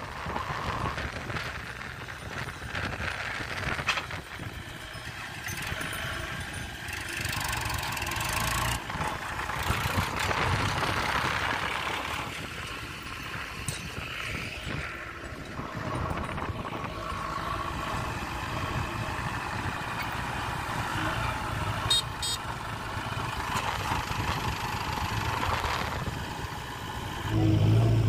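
Diesel engine of a JCB 3DX backhoe loader running as the machine works.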